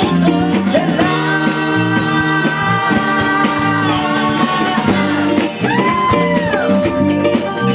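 Live rock band playing: drum kit, bass and guitars keep a steady beat under long held notes, and one note bends up and falls back about six seconds in.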